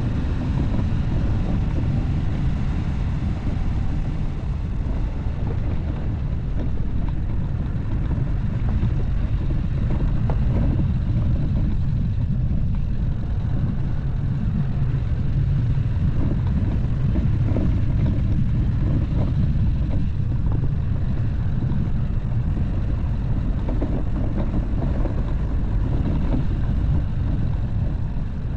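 Dacia Duster driving: a steady low rumble of engine and tyres.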